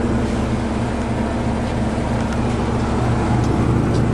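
1979 Dodge pickup's 318 V8 idling steadily, a low even hum.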